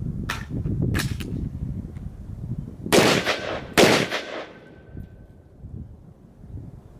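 Two loud shots from an AR-15 pistol, a little under a second apart, each trailing off in a long echo. A few fainter sharp cracks come before them.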